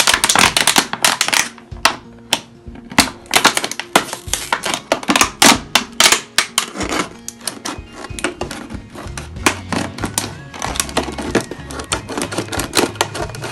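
Thin plastic drink bottle crackling and crinkling in quick irregular snaps as it is pressed and handled, densest in the first half, with scissors snipping into the plastic near the end. Soft background music plays underneath.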